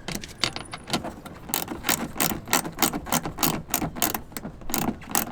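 Ratchet wrench with an 11mm socket clicking rapidly and unevenly as a bolt is tightened.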